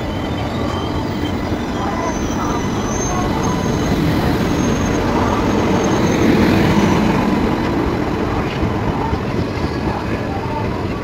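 Indian Railways WAP-5 electric locomotive passing close by, a steady rumble of its wheels and running gear on the rails that swells to its loudest about six seconds in as it draws alongside, then eases.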